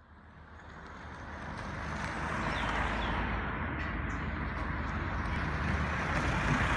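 Outdoor urban background noise, a steady hum like distant traffic, fading in from silence over the first couple of seconds, with a couple of faint short chirps.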